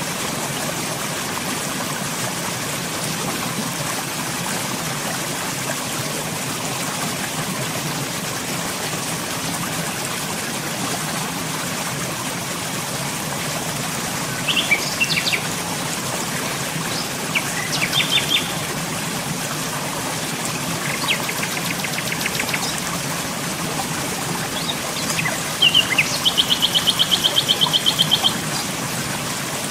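Birds chirping in a few short clusters, then a fast, even trill lasting about two seconds near the end, over a steady rushing hiss.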